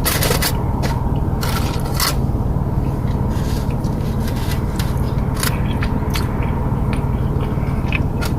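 Close-up eating: chewing and irregular wet mouth clicks while eating barbecue ribs, over a steady low hum.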